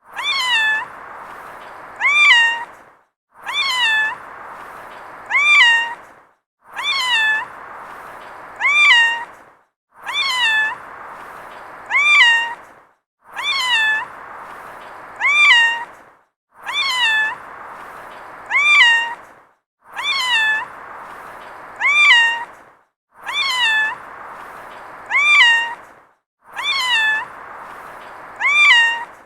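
A cat meowing: two short meows about a second and a half apart, each rising then falling in pitch, the same pair repeated about every three seconds over a faint steady hiss.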